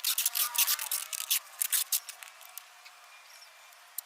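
Quick rustling and scraping strokes of packing material being handled, dying down after about two seconds.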